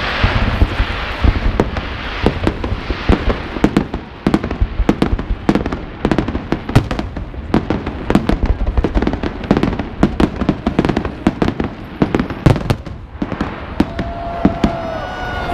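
Fireworks display: aerial shells bursting in a rapid, irregular run of loud bangs and crackles, several a second, over a continuous low rumble.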